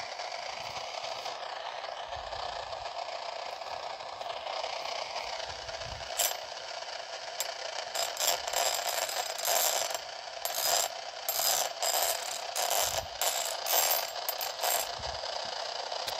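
Steady hiss of RF noise from a handheld receiver tuned to 300 MHz, the noise put down to a Galaxy A52 phone. From about six seconds in, a metal rod is scraped across the teeth of a file in a run of short, rasping strokes, louder than the hiss.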